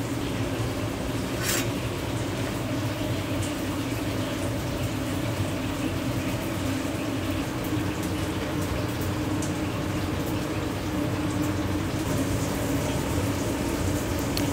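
Steady restaurant-kitchen background noise: a constant hum with a hiss over it, and a brief high hiss about a second and a half in.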